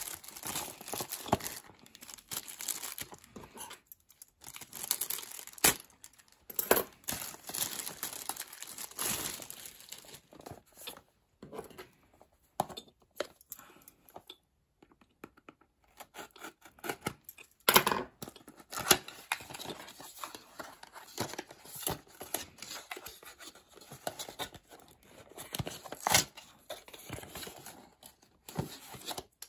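Clear plastic packaging bag crinkling and tearing as a small product box is unwrapped by hand, with irregular rustles and sharp clicks of handling and a quieter lull partway through. Near the end the cardboard box is handled and opened.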